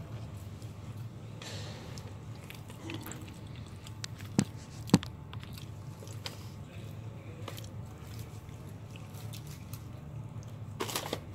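Close-up eating of crispy fried chicken: chewing, with a crunchy bite into the coating near the end. Two sharp clicks come near the middle.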